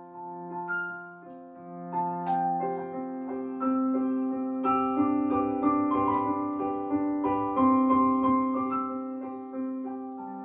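Piano music: a melody of single notes over held chords.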